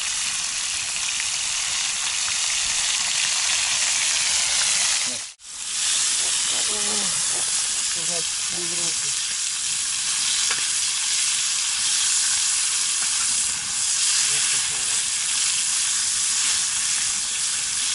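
Meat frying hard in hot fat in a sadzh pan over a campfire: a steady, dense sizzle that breaks off for an instant about five seconds in.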